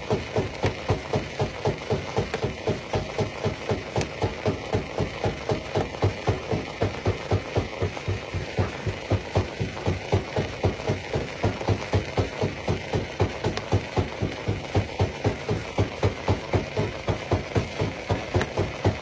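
Stone crusher plant running, its machinery giving a steady, even thumping of about three beats a second.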